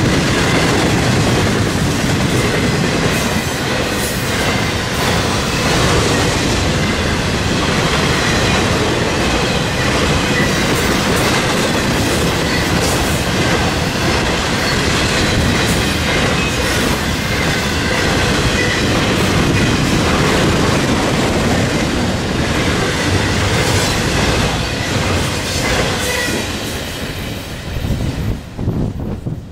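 Cars of a Florida East Coast Railway intermodal freight train, loaded with double-stack containers and highway trailers, rolling past close by. The steel wheels clatter over the rail joints with a faint high ringing above the rumble. The noise fades over the last few seconds as the end of the train goes by.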